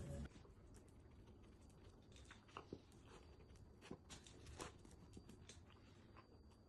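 Faint, scattered rustles and small clicks of a puppy nosing and rummaging through a foraging toy for treats, a few slightly louder ones partway through.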